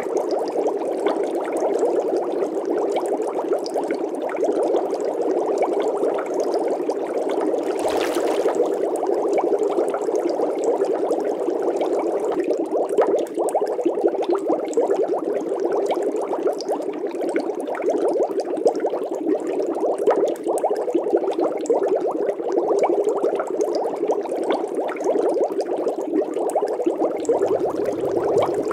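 Steady, muffled bubbling water, a dense continuous churn without pauses. A short burst of hiss about eight seconds in, and a low rumble comes in near the end.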